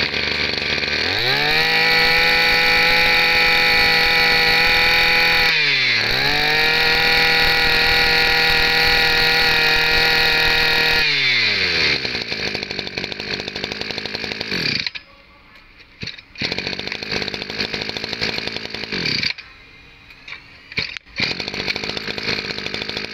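Makita 25 cc two-stroke brush cutter engine running. It revs up to full throttle about a second in, eases off briefly around six seconds, then falls back to an uneven idle, which dips quieter twice near the end.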